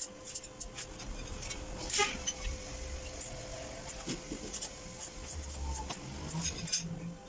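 Metal-workshop background noise: scattered light clicks and taps over a steady hum, with low rumbling and a brief low tone near the end.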